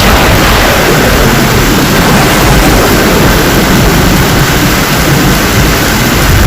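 Heavy rain pouring steadily, with a deep rumble underneath.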